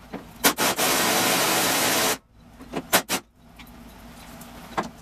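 Pneumatic wrench running on a fender bolt: a loud, even hiss of air for about a second and a half that cuts off abruptly, with sharp metallic clicks before and after it.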